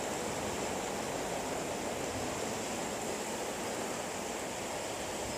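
Steady rushing outdoor background noise with no distinct events.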